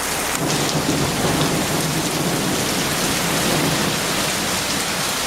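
Heavy rain pouring down steadily, with a low rumble that comes in about half a second in and goes on under the rain.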